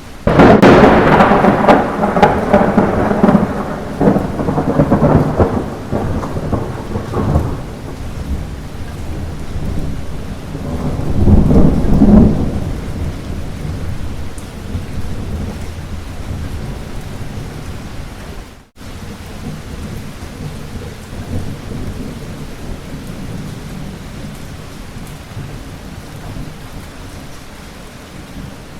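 A close thunderclap breaks right at the start and rumbles away over several seconds, then a second lower roll of thunder swells and fades, over steady light rain. The rain cuts out for an instant about two-thirds of the way through.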